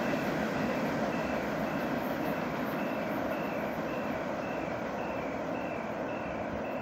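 Freight train of tank wagons rolling away, a steady rumble that slowly fades into the distance. A short high chirp repeats about twice a second over it.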